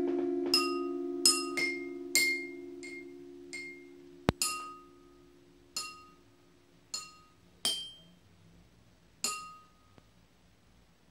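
Drinking glasses and cups tapped one at a time in a slow, uneven free-improvised pattern, each strike ringing briefly at its own bright pitch, with one dry click about four seconds in. An electric guitar chord rings on underneath and dies away over the first several seconds.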